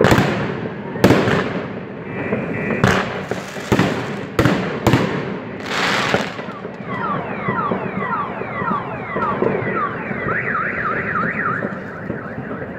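Fireworks go off in a string of sharp bangs over the first six seconds. A car alarm then cycles through its siren tones: repeated falling whoops, a fast up-and-down warble, then rising whoops.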